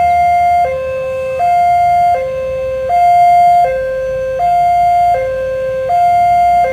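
Railway level-crossing warning alarm sounding a steady two-tone pattern, switching between a lower and a higher tone about every three-quarters of a second, the higher tone the louder: the warning that a train is approaching.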